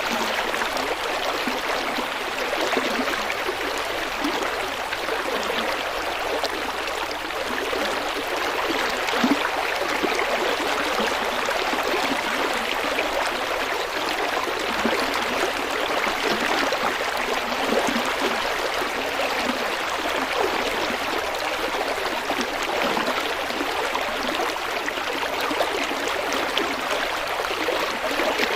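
River water flowing steadily over rocks, a continuous rushing and babbling with small gurgles and splashes.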